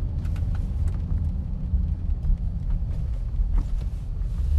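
Steady low rumble of a car driving, heard from inside the cabin, with a few faint light ticks over it.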